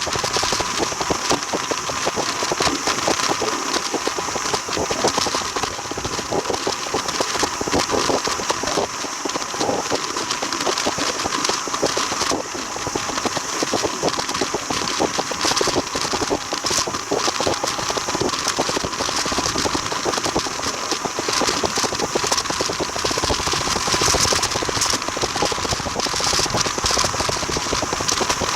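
Train running on the rails, heard on board: a steady, loud rumble and rattle of wheels and carriage, with a fast clatter throughout.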